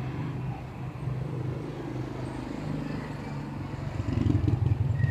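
A motor vehicle's engine running with a steady low hum, growing louder about four seconds in.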